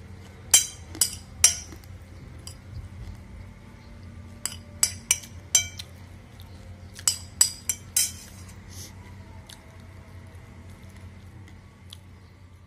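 Steel spoon clinking and scraping against a ceramic plate while scooping up jhal chanachur: a few sharp clinks in the first second and a half, then a run of about eight more between four and eight seconds in.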